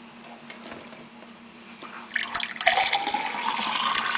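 Kitchen tap turned on about two seconds in, running water into a drinking glass, with a rising tone as the glass fills.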